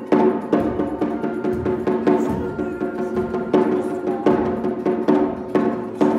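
A small drum struck in a steady beat about twice a second, over a music track with held notes.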